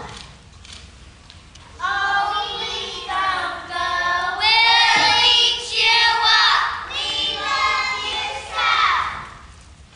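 Young children's voices singing together, starting about two seconds in and stopping shortly before the end.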